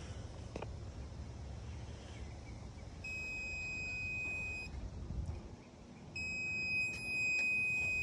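The Canary electrified-water and current tester sounds its steady, high-pitched alarm tone. It sounds first for under two seconds about three seconds in, then again from about six seconds in, and is still going at the end. The tone signals voltage picked up between its probes in the pool water.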